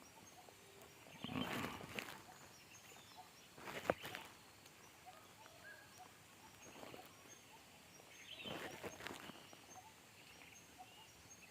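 Faint, intermittent rustling and handling noises: a few short bursts, with a sharp click about four seconds in, over a quiet rural background.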